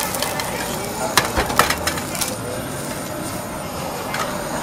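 Scallops in their shells sizzling on a wire grill, with a quick run of sharp clicks a little over a second in, as shells or tongs knock against the grill.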